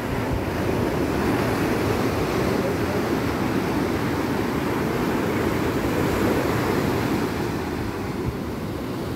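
Sea surf washing in steadily, with wind buffeting the microphone.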